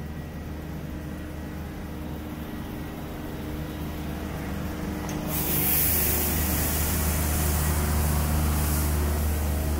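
Steady low mechanical hum of a running engine, joined about five seconds in by a sudden, loud, steady hiss like air or spray being released.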